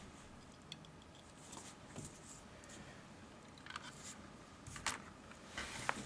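Faint scattered clicks and light taps of small parts and wires being handled on a bench, with a few sharper clicks near the end.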